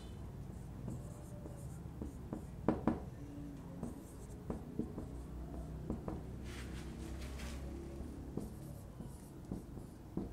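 Marker pen writing on a whiteboard: a series of short strokes and taps of the pen tip, with one longer stroke about six and a half seconds in.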